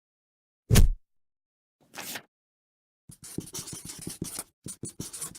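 A single deep thud, a short hiss about a second later, then a run of quick, irregular scratching sounds lasting about two seconds.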